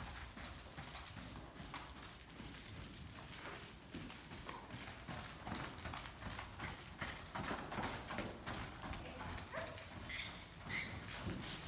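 Steady, rhythmic hoofbeats of a ridden Half-Arabian Warmblood gelding moving along the rail on soft sand arena footing.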